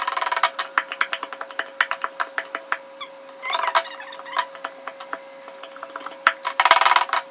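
Thick Elmer's glue being squeezed out of its bottle, squelching and sputtering in short bursts with scattered clicks, slow to come out because the glue is thick. A faint steady hum runs underneath.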